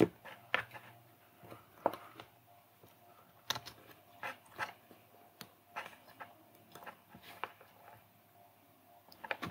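Small, irregular clicks and taps of circuit boards and a plastic female pin header being handled and pressed onto an Arduino's header pins.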